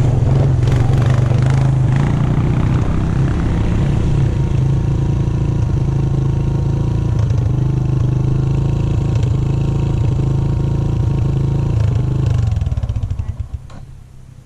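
Dirt bike engine idling steadily, heard close up from the bike itself, then shut off near the end and running down to a stop within about a second.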